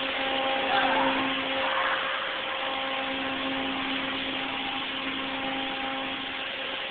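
Automatic car wash machinery running: a steady whining hum from its motors over a constant hiss of spraying water and spinning brushes.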